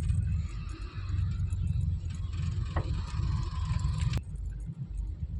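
Low, uneven rumble of city road traffic, with a couple of short clicks about three and four seconds in.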